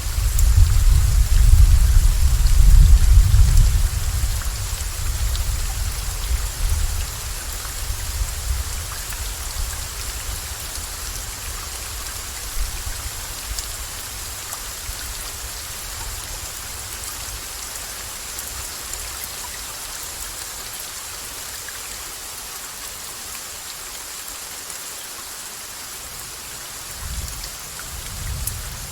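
Steady rain hissing, with a long rolling rumble of thunder in the first few seconds that dies away over about ten seconds; a fainter low rumble swells again near the end.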